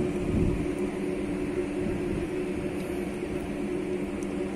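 Steady drone of running machinery with a few constant hum tones, and a brief low rumble about the first half second in.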